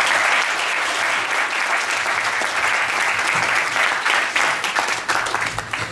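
Audience applauding: steady clapping that thins out and stops near the end.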